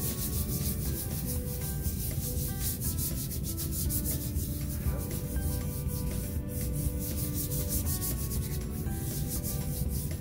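A hand rubbing quick repeated strokes over a folded sheet of paper, a continuous scratchy swishing, pressing the wet paint inside so it transfers to the other half of a squish print.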